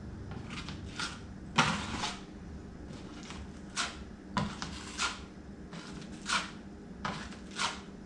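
Newly rewired wall light switches being flipped on and off to test them with the power back on: a dozen or so sharp clicks at irregular intervals, the loudest about one and a half seconds in, over a low steady hum.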